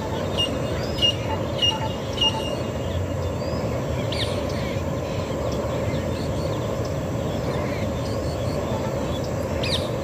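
Birds calling over a steady low rumble: four short, evenly spaced chirps in the first couple of seconds, then two sharp rising-and-falling calls, one about four seconds in and one near the end.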